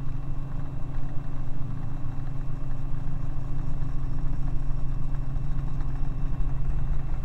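Steady drone of a helicopter's engine and rotors heard from inside the cabin in slow flight: a deep, even hum with a thin high whine over it.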